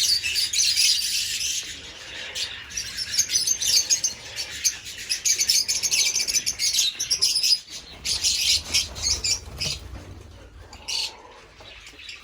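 Small cage birds chirping and chattering, many at once, in repeated clusters of quick high chirps that thin out near the end.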